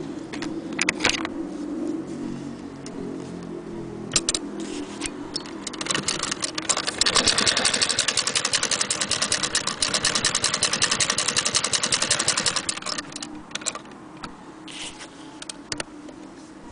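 Antique Frister & Rossmann hand-crank sewing machine running, a fast, even mechanical clatter that starts about six seconds in and stops about seven seconds later. Single clicks and knocks from the machine being handled come before and after the run.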